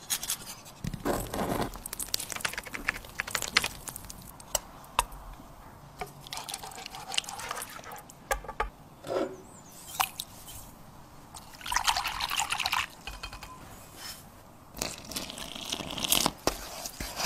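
Close-up food-preparation sounds in a quick series of crisp clicks, scrapes and wet, sticky noises: a rasp grater scraping, a wire whisk stirring thick sauce in a frying pan, and near the end water poured into flour in a metal bowl.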